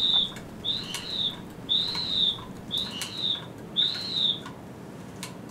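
Whistle built into a spinning whirligig toy (a lit disc on a loop of string) sounding in five high tones, about one a second, each rising and then falling in pitch as the disc speeds up and slows with each pull and relax of the string.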